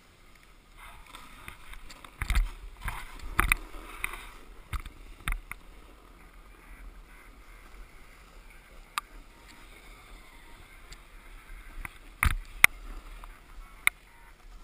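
Snowboarder's gear handled and moving on packed snow: rustling and scraping with scattered sharp knocks and clicks, a cluster of them a couple of seconds in and two more sharp ones near the end.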